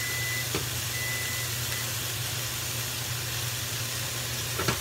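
Steak frying in a hot, oily pan, a steady hiss with a constant low hum under it. A light click about half a second in and a sharper clack near the end as a fork works in a glass jar of jalapeño slices.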